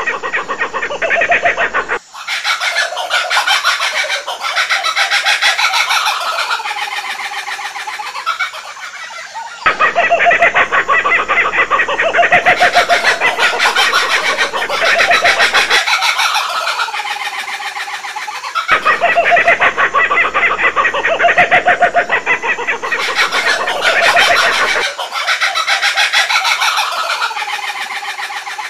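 Laughing kookaburras calling: a rapid, cackling, laugh-like call that rises and falls in long rolling passages. The same passage comes round again about every nine seconds.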